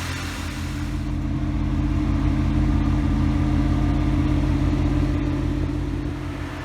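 1984 Pontiac Trans Am's V8 running steadily with an even low firing pulse, a little louder in the middle, after a hard start following years of sitting.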